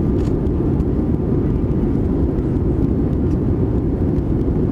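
Steady engine and airflow rumble of an Airbus A320-200 heard from inside the passenger cabin during takeoff or climb, a constant low drone with a faint hiss above it.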